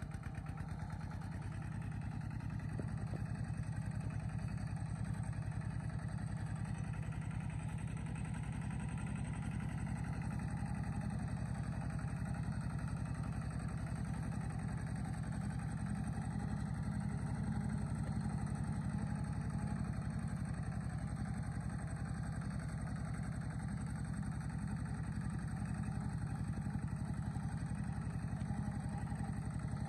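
A vehicle engine running steadily, a low hum with an even pulse that holds without break.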